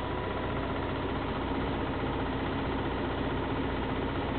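Fresenius COM.TEC apheresis machine running during stem-cell collection: a steady mechanical hum from its centrifuge and roller pumps.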